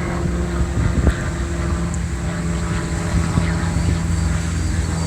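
A steady engine hum over a low rumble, with a couple of short knocks about a second in.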